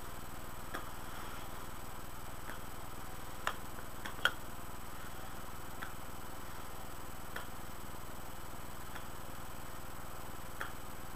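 Faint small wet clicks of lips puffing on a curved tobacco pipe, about one every second and a half, two slightly louder around four seconds in, over a steady low hum.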